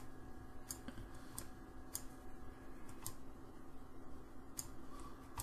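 Irregular, sharp clicks of a computer mouse, about eight in a few seconds, over a steady low hum of the computer and room.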